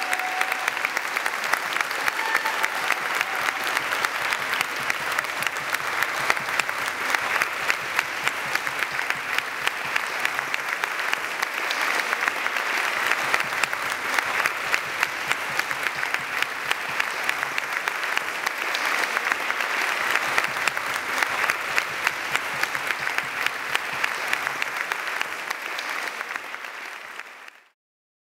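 Large audience applauding: dense, steady clapping that fades out shortly before the end.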